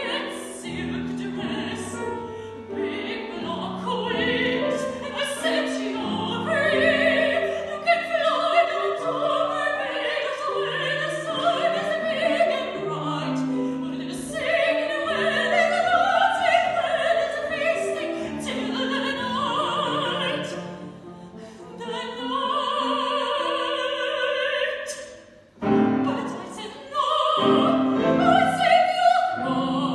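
A woman singing an operatic aria in full classical voice with vibrato, accompanied by piano. The singing breaks off briefly near the end, then resumes.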